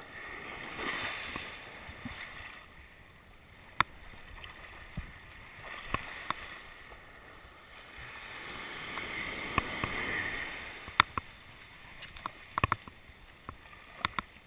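Small surf washing up the beach, swelling twice, with sharp clicks and knocks from a spinning reel and rod being cranked and handled right at the microphone.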